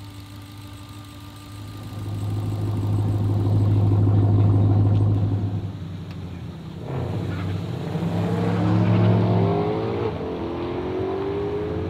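Ram TRX's supercharged 6.2-litre V8 running steadily, heard from inside the cab, growing louder for a few seconds. After a cut about seven seconds in, engines are heard outside rising in pitch as they accelerate, twice.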